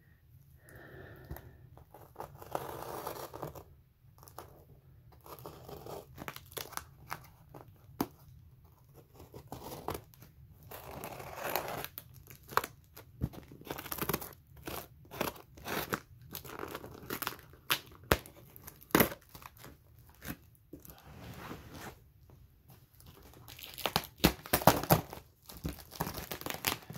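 Scissors cutting through clear plastic wrap and packing tape on a cardboard box, with the plastic and tape tearing and crinkling in irregular snips and rips. A quick run of louder rips and snips comes near the end.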